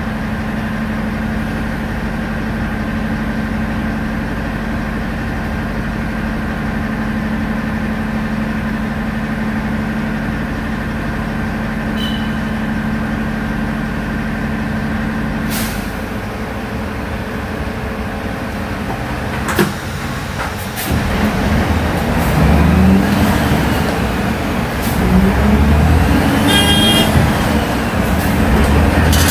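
Natural-gas engine of a Volksbus 17-230 OD city bus idling steadily, then a short hiss and a click before it pulls away. The engine gets louder, its pitch rising and falling as the bus accelerates through the gears.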